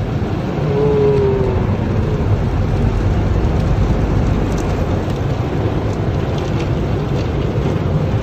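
Automatic tunnel car wash heard from inside the vehicle: a steady rumbling wash of water spray and spinning cloth brushes working over the windshield and body, with a brief, slightly falling tone about a second in.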